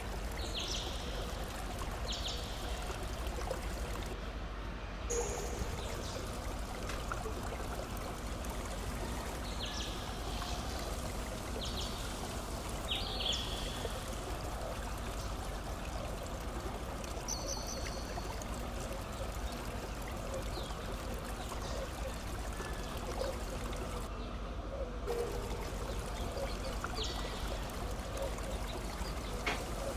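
Steady running water, like a stream or trickle, with short high bird chirps every few seconds.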